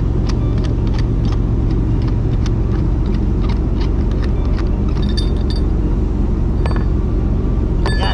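Steady low machinery rumble with a hum, overlaid by light clicks and clinks as a cap fitting on an enclosed lifeboat's canopy is handled and worked open, with a sharper clink near the end.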